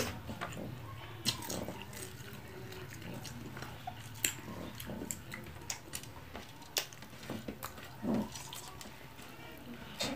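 Close-up eating sounds: wet chewing and lip-smacking clicks as fried tilapia and lettuce are picked up and eaten by hand. There is a short low creak from a noisy chair about eight seconds in.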